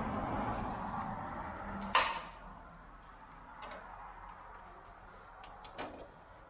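A steady low running noise stops about two seconds in with one sharp metallic click, followed by a few faint clicks. These are the tractor's hydraulic hose couplers being worked as the backhoe lines are disconnected and looped back.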